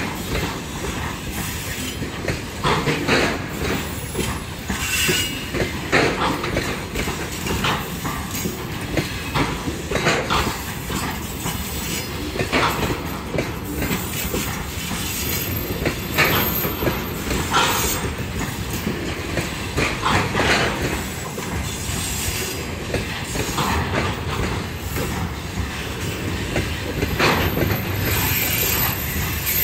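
A freight train of covered hopper wagons rolling past, its wheels clacking over rail joints in irregular loud knocks, with a few thin high squeals.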